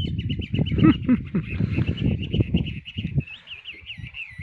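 A bird calling with rapid, repeated high chirps that turn into wavy, warbling notes in the second half. Underneath is a loud, uneven low rumbling noise that eases off after about three seconds.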